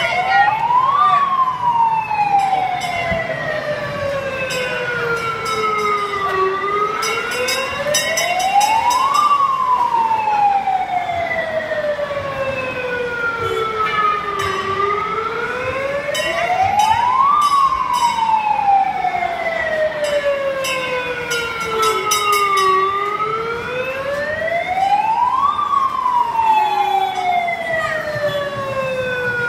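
Fire truck siren sounding a slow wail: the pitch rises over two to three seconds, then falls over about five, and this repeats about every eight seconds, four rises in all.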